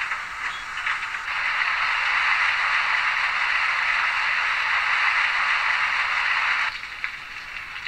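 Sound decoder of a Roco H0 model of the DB class 86 steam tank locomotive playing its water-taking sound through the model's small loudspeaker: a steady rushing hiss of water filling the tanks. It swells about a second in, with a few faint clicks at the start, and stops abruptly near the end.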